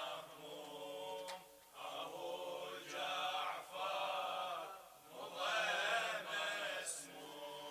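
Male chanting of an Arabic Shia mourning lament (latmiyya), sung in long, held, wavering phrases separated by short breaths.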